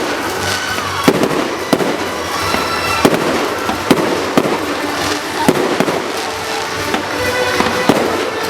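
Fireworks display: aerial shells banging about once a second over continuous crackling.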